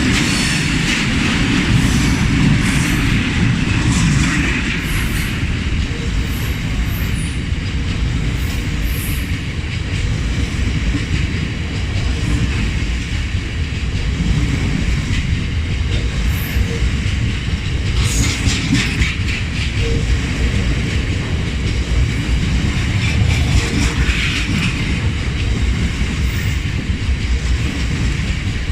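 Freight train hauled by Class 60 diesel locomotive 60015 rolling steadily past, its wheels clattering over the rail joints in a continuous rumble.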